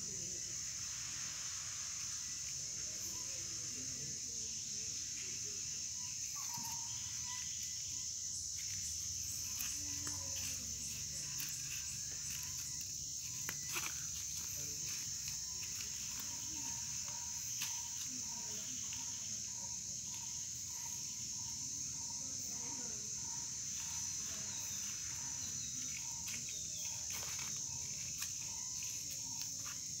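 Crickets trilling steadily, a continuous high-pitched chirr. From about halfway in, a soft lower note repeats a little faster than once a second.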